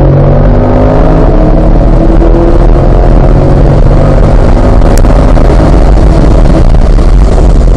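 C8 Corvette's 6.2-litre V8 at wide-open throttle, accelerating hard from about 64 to 110 mph with one upshift from third to fourth gear, heard from inside the cabin. The engine note climbs in pitch over a heavy rumble of road and wind noise.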